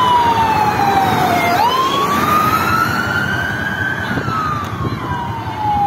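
An emergency vehicle's siren in a slow wail: the pitch falls for about a second and a half, climbs for a couple of seconds, then slowly falls again. A steady noisy background runs beneath it.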